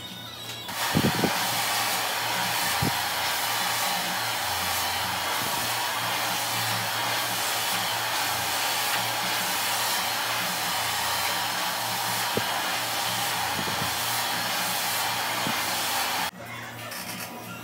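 Handheld blow dryer running steadily, blowing air through long hair, switched on about a second in and cutting off suddenly near the end.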